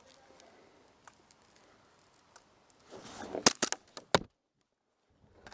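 Airsoft guns firing in close-quarters play: a quick series of sharp cracks about three seconds in, loudest twice within about half a second, after faint background. The sound then cuts out to dead silence for about a second.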